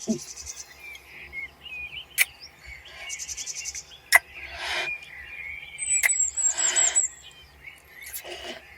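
Forest ambience of small birds chirping and trilling in quick high runs. A few sharp clicks and soft breathy hisses come in among the calls.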